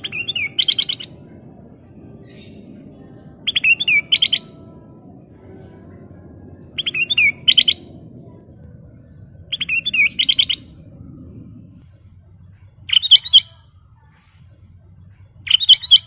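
Ruby-throated bulbul (kutilang emas) singing short, loud phrases of quick warbled notes, six phrases about three seconds apart.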